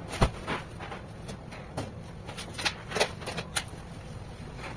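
Irregular light clicks and knocks, a dozen or so with the sharpest right at the start: a knife slicing a sushi roll against a plastic cutting board, and the slices being set down.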